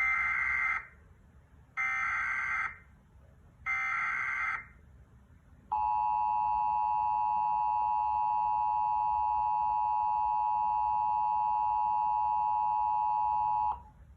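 Emergency Alert System broadcast tones: three short bursts of SAME header data about a second apart, followed by the two-tone EAS attention signal held steady for about eight seconds before cutting off.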